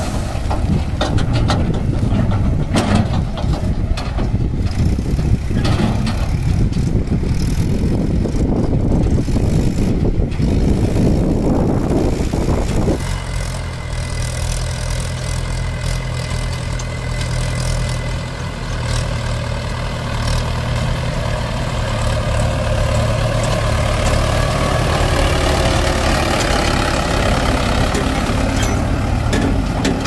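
Mahindra 575 tractor's diesel engine running, rough and noisy with crackling through the first half. About halfway through the sound changes abruptly to a steady, even engine note.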